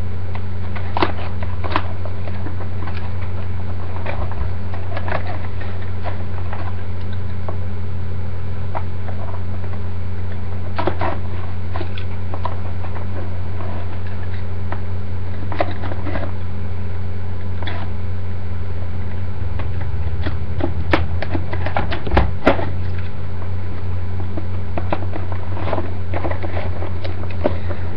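Plastic toy packaging being handled and pried at while a boxed toy morpher is worked out of it: scattered clicks and crackles, more frequent near the end. A steady low hum runs underneath.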